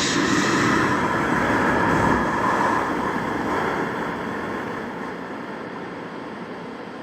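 Distorted, reverb-soaked horror sound effect: a dense rumbling noise with held tones, slowly fading away over the last few seconds.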